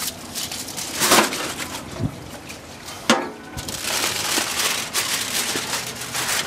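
Aluminium foil crinkling as it is handled and peeled back off a tray of raw burger patties: a burst of crackle about a second in, a sharp crack about three seconds in, then dense crackling over the last few seconds.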